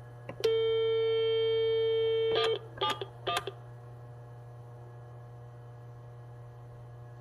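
Dial tone from a desktop landline phone's hands-free speaker, a steady tone lasting about two seconds, cut off by three short keypad beeps as a number is dialled. A steady low hum lies underneath.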